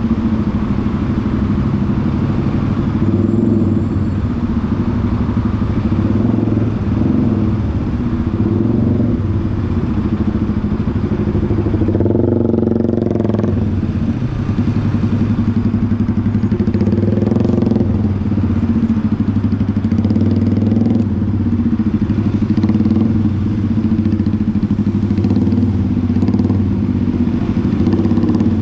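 Bajaj Pulsar NS200's single-cylinder engine running steadily at a fairly constant speed, its note shifting briefly about twelve seconds in.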